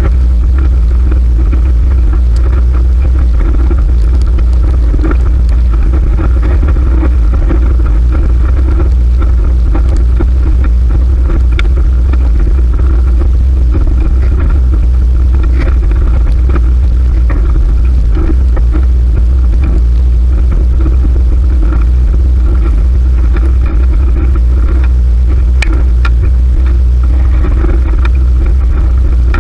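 Loud, steady wind rumble on the microphone during a fixed-gear bicycle ride, with road noise underneath and scattered small clicks.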